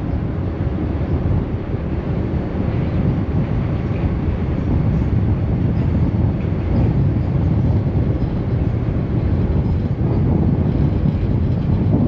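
Steady low rumble of a moving harbour ferry, with wind noise on the open deck, growing a little louder toward the end.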